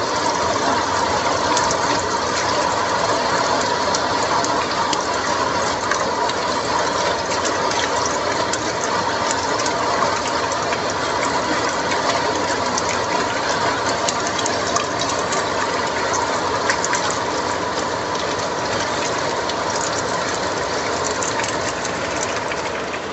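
Dried anchovies sizzling and crackling steadily in hot oil in a wok as they are fried dry, with a faint steady tone beneath. It eases a little near the end.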